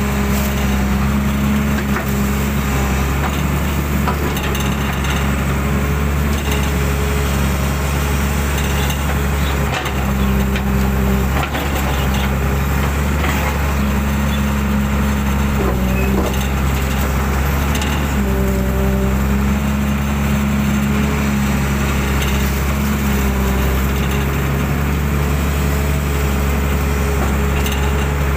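Hydraulic excavator's diesel engine running steadily under load, heard from the operator's cab, with a higher hum that comes and goes and shifts a little in pitch as the boom and bucket dig mud out of the ditch. There are a few faint knocks.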